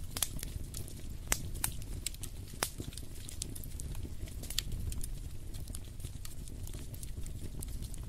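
Log fire in a fireplace crackling, with irregular sharp pops and snaps over a steady low rumble.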